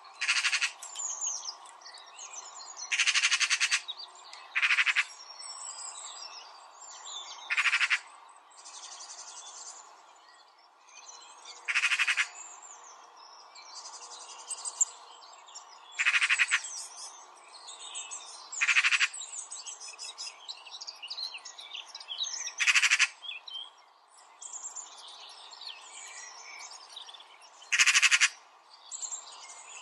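Many birds chirping and trilling, with a louder harsh, rasping call breaking in about nine times, every few seconds.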